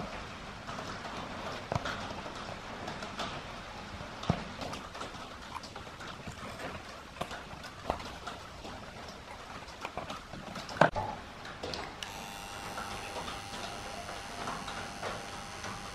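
Irregular light clicks and taps of metal tweezers working a fine wire on a loudspeaker cone, with one sharper click about eleven seconds in. About twelve seconds in, a steady electrical buzz starts, from the orange transformer soldering gun being switched on.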